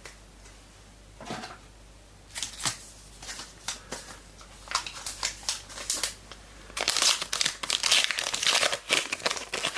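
Trading-card packet wrapper crinkling as cards are handled and the next pack is opened. It starts as faint scattered rustles and clicks, then turns into a dense, loud crinkling about seven seconds in.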